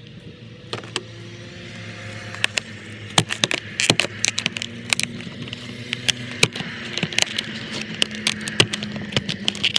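Stiff clear plastic blister packaging crackling and clicking as it is pried and peeled away from its cardboard backing, the crackles coming thicker from about two and a half seconds in, over a steady low hum.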